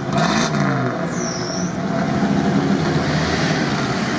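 Engine of a Mitsubishi Pajero 6x6 off-road truck running under load as it drives through deep mud, its pitch falling off a rev in the first second and then holding steady. A brief high whistle sounds just over a second in.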